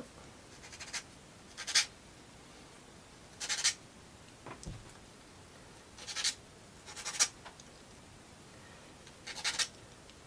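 Short scrapes of thin plywood model pieces rubbing and sliding against each other as they are handled and fitted, about six of them, a second or two apart.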